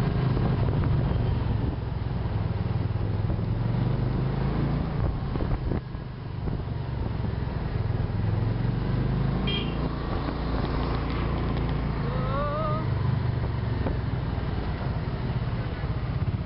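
Steady low engine drone of a vehicle driving through town traffic, with street traffic around it. There is a brief high chirp about nine and a half seconds in, and a short wavering tone about twelve seconds in.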